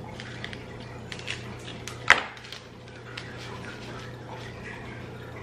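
Sesame seeds sprinkled from a small plastic bag onto a plate: faint crinkling of the bag and light scattered ticks, with one sharp click about two seconds in, over a steady low hum.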